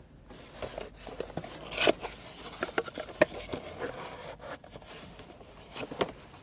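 Cardboard packaging being handled as a small alarm clock is taken out of its box: irregular scratchy rubbing and scraping with scattered sharp clicks, the sharpest about three seconds in.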